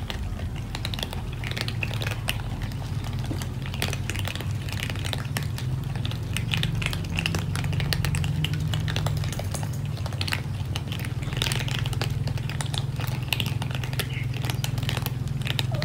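Many cats crunching dry kibble at once: a dense, continuous patter of small overlapping crunches and clicks over a steady low hum.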